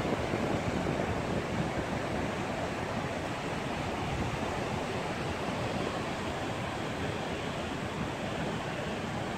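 Steady surf breaking and washing on the beach, with wind buffeting the microphone.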